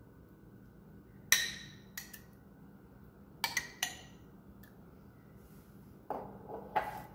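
Metal spoon clinking against the salsa jar and the plate as thick salsa is scooped out and dropped: several sharp clinks, the loudest about a second in. Near the end comes a rougher scraping as the spoon pushes the salsa over the cream cheese.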